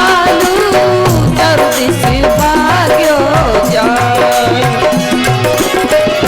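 Rajasthani devotional bhajan music: a wavering, sliding melody over a steady percussion rhythm.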